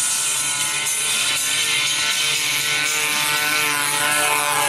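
Engine of a radio-controlled aerobatic model airplane running steadily in flight, its pitch beginning to rise near the end.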